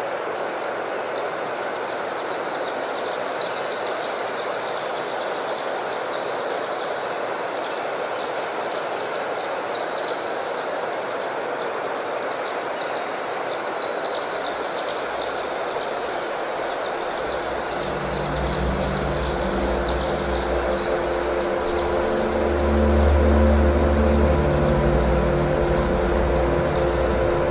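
Ambient electronic soundscape: a steady rushing noise with fast fine ticking, then, about two-thirds of the way in, droning synthesizer tones and low bass notes come in under a high, slowly sweeping whistle-like tone, growing louder.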